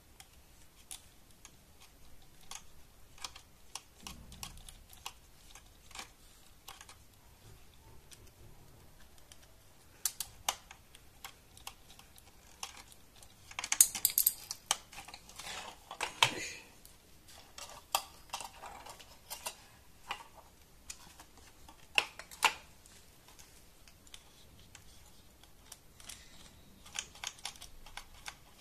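Irregular clicks and taps of hard plastic parts being handled: a GoPro in its mount and the plugs and frame of a quadcopter. There is a louder flurry of clicking and rustling about halfway through.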